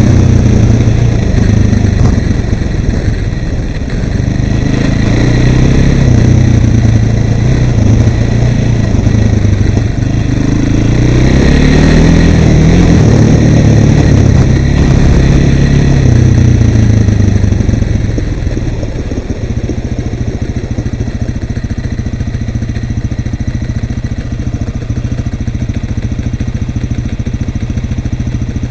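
Suzuki LT-Z400 quad's single-cylinder four-stroke engine under throttle, its revs rising and falling, then dropping to a steady idle about 18 seconds in.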